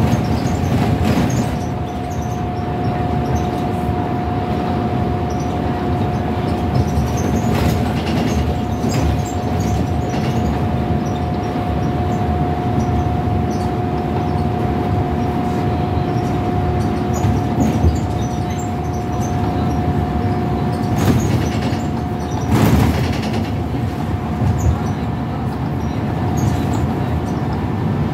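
Scania L94UB Wright Solar single-deck bus cruising at speed, heard from inside the saloon: a steady drone of the rear diesel engine and road noise, with a steady whine that drops out near the end. A few brief knocks and rattles from the body.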